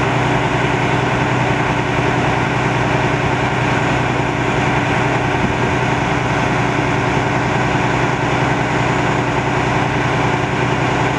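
Vehicle engine idling steadily, a constant low hum.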